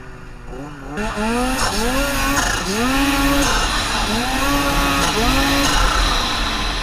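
Snowmobile engine revving up and easing off again and again, about six throttle surges in a row, under a steady hiss of snow spray and wind that grows louder about a second in.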